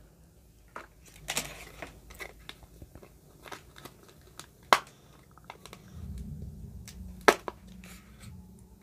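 Earbuds being pried out of a black plastic packaging tray: scattered clicks and crinkles of handled plastic, with two sharper snaps, one a little under five seconds in and one past seven seconds.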